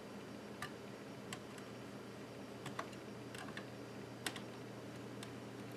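Scattered light clicks and taps of the iBook G4 laptop's parts being handled and worked loose during disassembly, about eight, irregularly spaced, the loudest a little past halfway, over a steady low hum.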